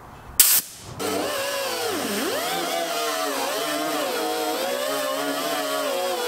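Small air-powered right-angle grinder with a wire cup brush, whining at high speed as it scours rust off a steel wagon bed. The pitch dips and recovers as the brush is pressed onto the metal. It is preceded by a brief loud burst of noise about half a second in.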